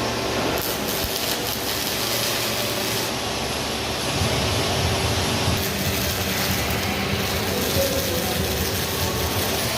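Robotic welding gantry system running: a steady machinery noise that grows deeper and a little louder about four seconds in.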